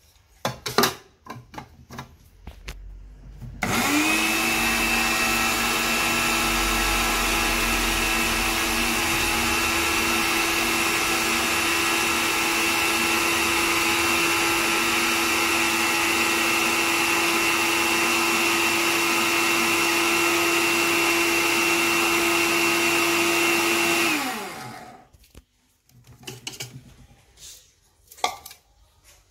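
Electric mixer grinder running with its small stainless-steel jar, grinding dried neem leaves into fine powder: the motor spins up quickly after a few clicks of the jar being set in place, runs at a steady high whine for about twenty seconds, then winds down with falling pitch. More clicks and knocks of the jar and lid follow near the end.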